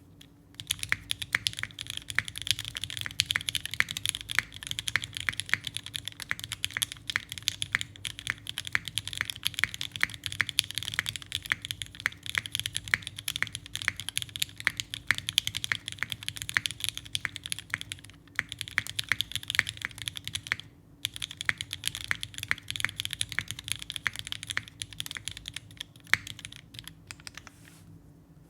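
Continuous fast typing on a Geonworks F1-8X mechanical keyboard with lubed vintage Cherry MX Black linear switches, an aluminium plate, an O-ring gasket mount and GMK keycaps: a dense run of key clacks, with two short pauses past the middle.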